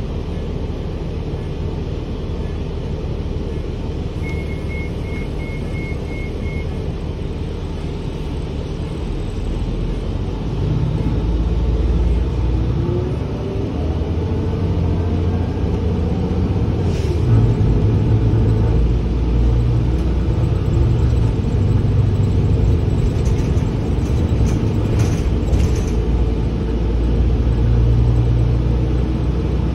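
Gillig Advantage transit bus heard from inside the cabin: a steady engine and road rumble that grows louder about ten seconds in as the bus pulls away and gathers speed, with a faint rising whine. A short run of quick beeps comes a few seconds in, and a few rattles come later.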